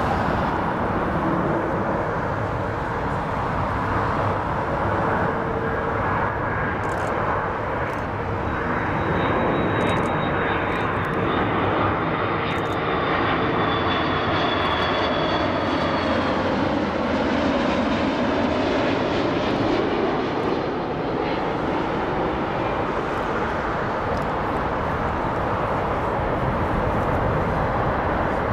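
Twin turbofan engines of an Iberia Airbus A330-300 on final approach, a steady jet-engine rumble with a high whine that slides down in pitch about halfway through as the airliner passes.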